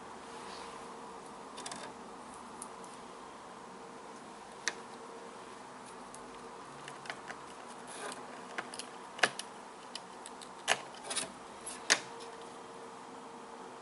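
Small sharp clicks and taps of a laptop's replacement screen panel and its lid parts being handled and fitted, scattered at first and coming more often in the second half, the sharpest three near the end. A steady faint hum runs underneath.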